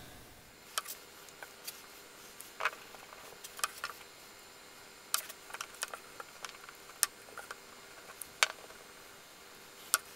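Sparse light clicks and taps, roughly one a second and unevenly spaced, from small tools and parts being handled on a workbench while two-part epoxy is dispensed and mixed with a small stick on a scrap board.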